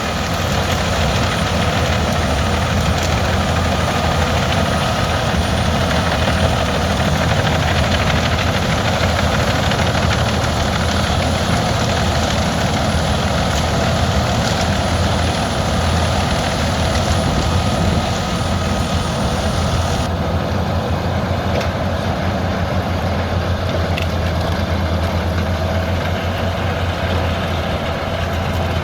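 Albach 700 hp biomass wood chipper's large diesel engine running steadily at a constant speed, a heavy low hum with a loud even rumble over it.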